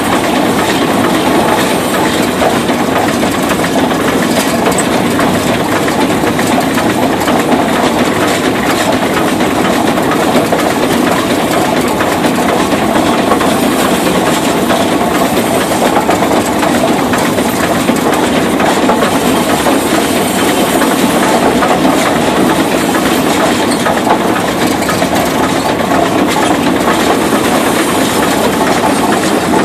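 Rumely steam traction engine running and driving along, heard close up from its platform: a loud, steady mechanical clatter that does not let up.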